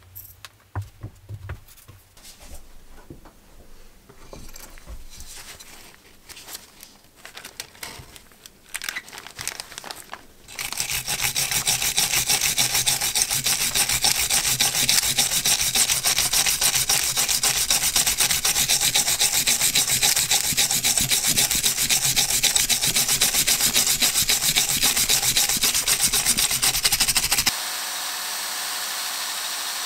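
Stiff hand brush scrubbing paint stripper and loosened paint off an old drill's aluminium housing in rapid back-and-forth strokes, loud and scratchy from about ten seconds in. Before that there are quieter, irregular scrapes and clicks. Near the end the scrubbing gives way to a steadier, quieter sound.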